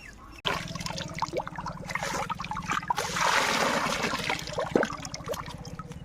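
River water splashing and trickling, with scattered small splashes and a louder rush of water for about a second and a half near the middle.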